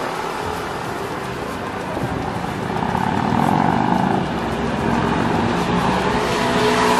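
City road traffic: cars running past on the street beside the sidewalk, one louder about three seconds in and another building near the end.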